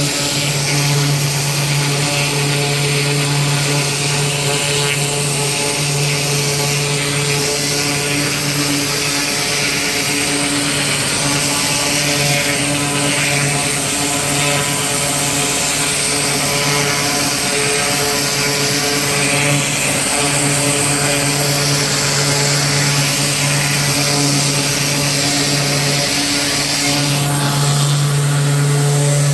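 Gas-engine pressure washer running steadily under a constant high hiss, with no change in pitch.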